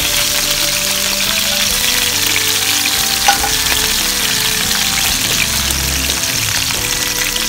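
Eggplant slices frying in hot oil in a nonstick pan: a steady sizzle with dense crackling as the slices are added and turned with wooden chopsticks. A single sharp click about three seconds in, and soft background music with held notes underneath.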